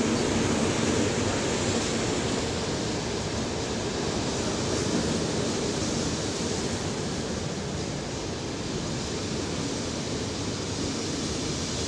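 Ten-car ER9M electric multiple unit passing along the platform at speed: a steady rush of wheels on rail and moving air, easing slightly toward the end.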